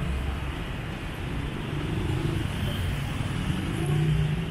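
Steady street traffic, with the engines of passing motorbikes and cars running close by. One engine hum swells louder about four seconds in.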